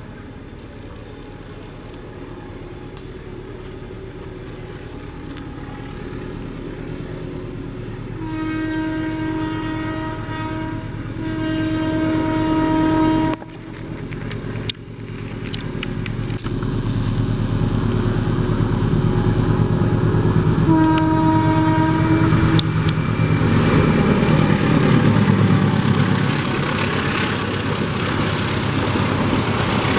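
A train sounding its horn: two long blasts about eight seconds in, another shorter blast about twenty seconds in. The horn is followed by rising rumble and wheel noise as the train draws close and passes, loudest near the end.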